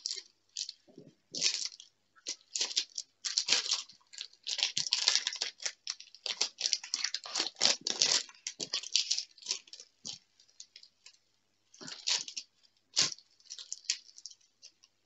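Clear plastic cover film on a diamond painting canvas crinkling and crackling as hands lift it and smooth it back over the canvas's sticky adhesive surface. The rustles come in irregular short bursts, busiest in the middle with a lull near the end.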